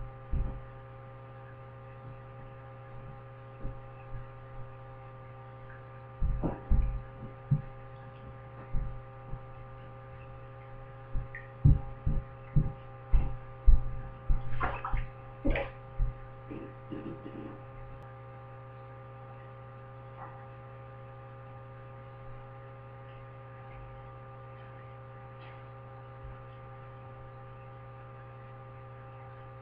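A steady electrical hum throughout, with a run of short dull thumps and light splashes between about 6 and 18 seconds, from a hand scooping water in a shallow sink basin over a bearded dragon.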